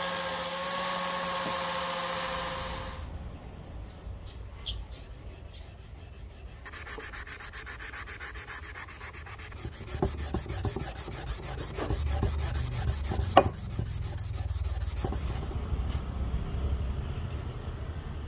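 Angle grinder with an abrasive disc running on a steel axe head, stopping about three seconds in. Then an abrasive pad is scrubbed by hand over the head to clean off rust: a scratchy rubbing with scattered clicks and one sharp tap.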